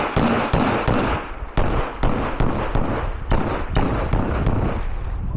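A string of pistol shots fired in quick succession during a timed competition stage, at uneven intervals of about half a second to a second, each echoing off the range.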